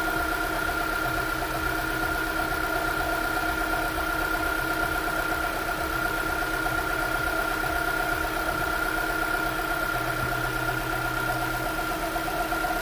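GM Celta/Corsa-line car engine idling steadily, with a constant high whine over the engine's beat. The owner attributes the noise to a failing oil pump.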